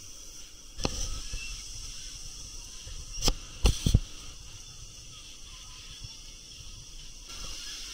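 Steady high hiss of outdoor ambient noise, broken by a sharp knock about a second in and three louder, sharper knocks or bumps a little past the middle.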